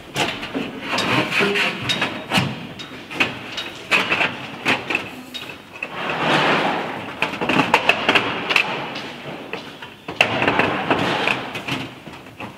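Knocks, taps and scraping as a white trim board is handled and pressed into place across the top of a window. There are sharp clicks throughout, with longer scrapes about six seconds in and again about ten seconds in.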